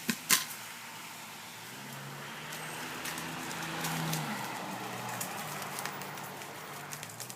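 Two sharp clicks, then the low, steady hum of a motor that swells and eases off, with scattered small clicks over it.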